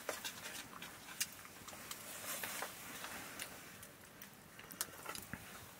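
Rice being eaten by hand from steel plates: faint, scattered clicks and light scrapes of fingers and rice on the metal.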